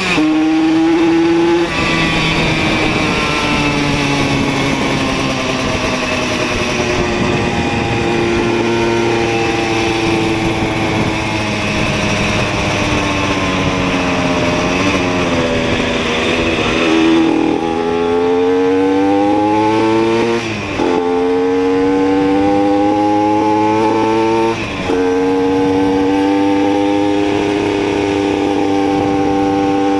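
Simson two-stroke moped engine under way. Its note sinks slowly, then climbs hard from a little past halfway, with short breaks and pitch drops at two upshifts, after which it holds steady.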